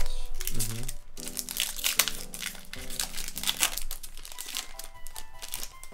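Foil Pokémon booster pack wrapper crinkling and crunching as it is handled and opened, over soft background music.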